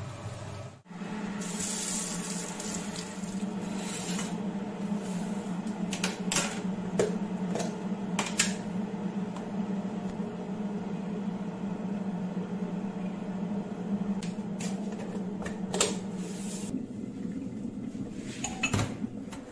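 Dishes and cutlery clinking and knocking at a kitchen sink during washing-up, with a noisy rush like running water near the start. A steady low hum runs underneath.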